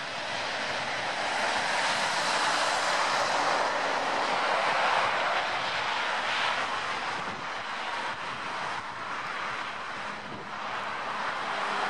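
Airbus A350 XWB's Rolls-Royce Trent XWB turbofans running as the airliner rolls along the runway: a steady, rushing jet noise that eases a little near the end and then swells again.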